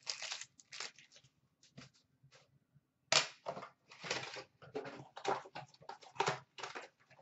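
Plastic wrapping on a box of baseball cards being torn and crumpled by hand: irregular rustling and tearing, sparse at first and then denser and louder from about three seconds in.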